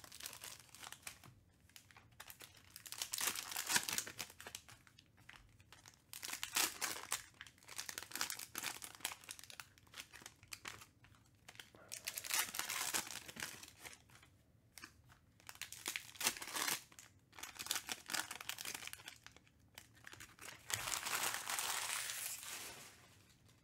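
Pink foil wrappers of Panini Mosaic basketball card packs crinkling and tearing in repeated bursts as the packs are ripped open and handled, with a longer stretch of crinkling near the end.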